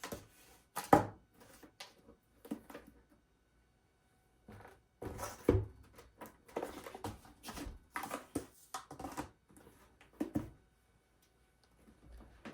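Books being handled and set down: irregular rustles and soft knocks, with the loudest thuds about a second in, in the middle, and again near the end.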